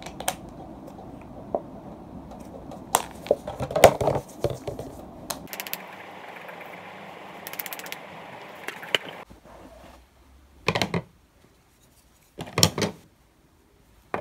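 Irregular clicks and knocks from handling small objects, including a plastic toiletry bottle, with a stretch of soft hiss in the middle and two short clusters of knocks near the end.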